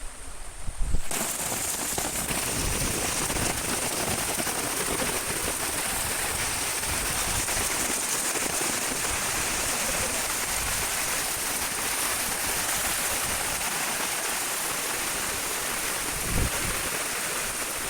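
Heavy rain falling steadily, a dense even hiss that starts abruptly about a second in, with a low thump near the end.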